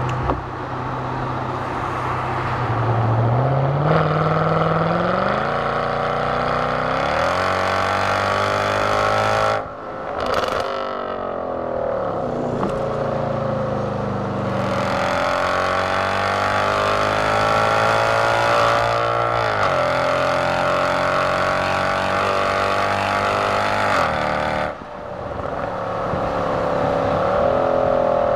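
Mercedes-Benz CL63 AMG's naturally aspirated V8 on its stock exhaust, heard from inside the cabin under hard acceleration, the revs climbing steadily. Twice the sound drops briefly and climbs again, about ten seconds in and a few seconds before the end, as the automatic gearbox changes gear.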